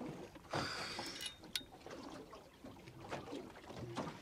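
Water moving against the hull of a small boat at sea, a low steady wash, with a short rush of noise about half a second in and a single sharp click about a second later.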